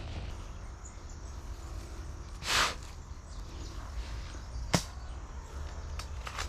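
An airsoft sniper rifle shot: a short puff of air about two and a half seconds in, then a single sharp click a couple of seconds later, with faint clicks near the end.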